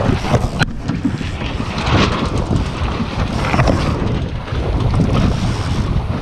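Wind buffeting the microphone of a body-mounted action camera on a racing Lightning sailing dinghy, with water rushing along the hull. A single sharp click comes just over half a second in.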